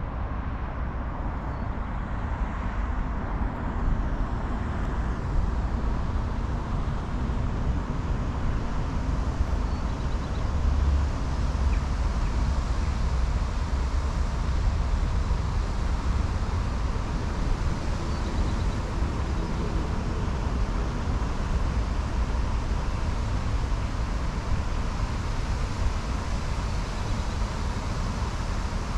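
Steady outdoor city ambience of distant road traffic: a constant low rumble under an even hiss, with a faint steady high tone.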